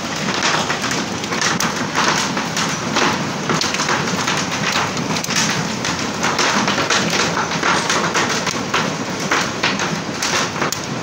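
Hailstorm: hailstones hitting in a dense, continuous clatter of overlapping sharp taps and knocks.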